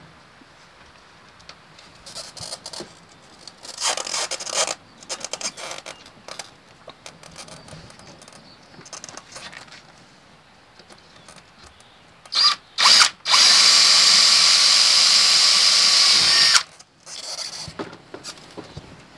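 DeWalt cordless drill drilling a hole for the battery switch's mounting screws: two short blips of the trigger, then a steady run of about three and a half seconds that stops abruptly. Before that, scattered clicks and knocks of handling.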